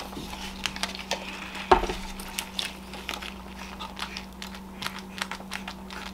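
Crinkling and scattered small clicks of a paper food wrapper being bitten and handled, with a faint steady hum underneath.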